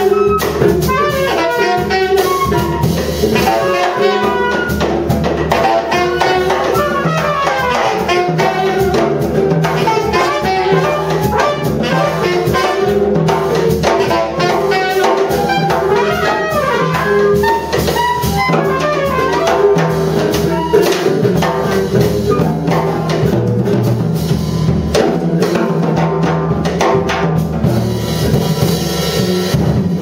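Live jazz ensemble improvising: saxophone, trumpet and flute lines weaving over busy drum kit playing, with a steady held low note beneath. Near the end the horn lines drop away, leaving drums and cymbals.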